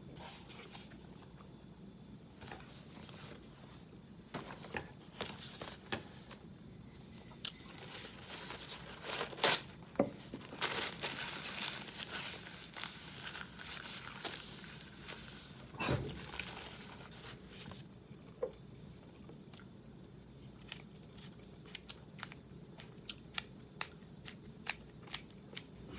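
Disposable twist-top spice grinder on a bottle of organic espresso coffee spice being turned by hand, giving faint, irregular crunching clicks. There is a denser stretch of grinding a little before the middle and a single knock about two-thirds of the way through.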